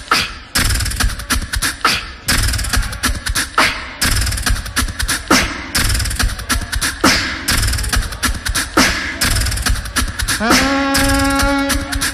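Live loopstation beatboxing: a looped beat of vocal kick, snare and hi-hat sounds repeating evenly, with a held sung tone layered on top about ten seconds in.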